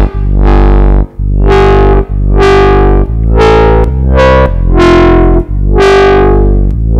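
Drum and bass foghorn bass played on the Vital software synth: a low, distorted note repeated about once a second, each note opening bright and darkening as the filter closes. The upper tone of the notes changes partway through as the second oscillator's wavetable is swapped from 'Angry Electric Dog' to 'Alternating Harmonics'.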